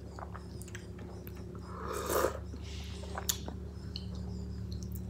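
Eating at close range: chewing with the mouth closed, and a metal spoon clicking once against a ceramic bowl a little after three seconds in, over a steady low hum.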